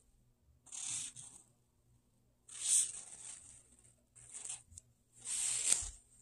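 A plastic piping bag squeezed four times in short strokes, making a hissing crinkle each time as clay cream is pushed out through a metal piping tip.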